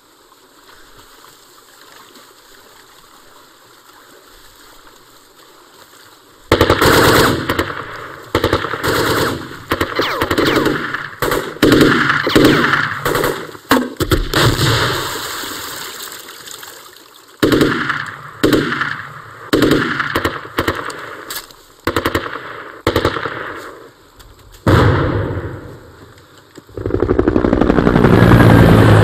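Faint steady outdoor background, then about six seconds in, repeated loud bursts of automatic rifle fire for some twenty seconds of firefight. Near the end a helicopter's rotor comes in, loud and steady.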